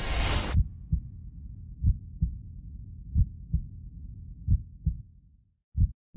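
Heartbeat sound effect: low double thumps about every second and a half over a low rumble that fades away. A choral music chord cuts off in the first half-second.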